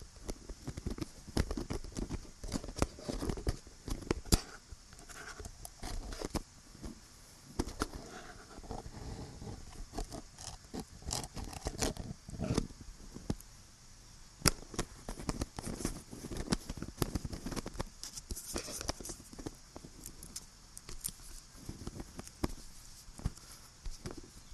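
Close-miked tapping, scratching and fidgeting with small hard objects: irregular sharp clicks and short scrapes, over a steady high hiss left in the recording.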